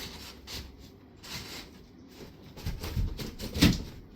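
Cardboard shelf being worked into the slots of cardboard wardrobe panels: cardboard scraping and rubbing against cardboard, with short knocks, the loudest a sharp knock about three and a half seconds in.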